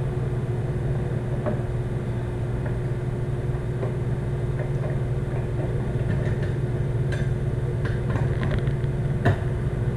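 Steady low mechanical hum, with a few light metallic clicks as the aluminium pressure cooker's lid is twisted and worked loose by hand. The sharpest click comes near the end.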